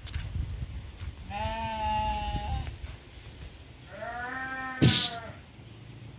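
Goat bleating twice: two long, hoarse calls like an old man's voice, the first about a second in and the second about four seconds in. A sharp knock sounds near the end of the second call.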